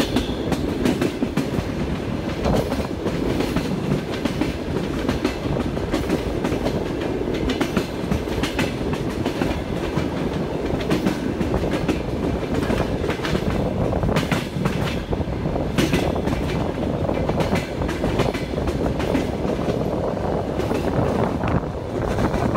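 Moving passenger train heard from on board: a steady rumble with the clickety-clack of its wheels running over the rail joints.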